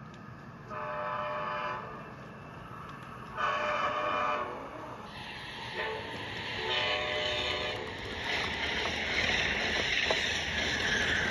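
Train horn sounding the grade-crossing signal: two long blasts, a short one, then a long one. From about halfway in, a rising rushing, rolling noise builds as the train approaches and passes.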